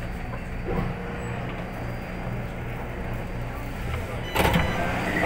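Inside a Taipei MRT train car: the steady low hum of the train running, then a short, loud burst of noise about four seconds in.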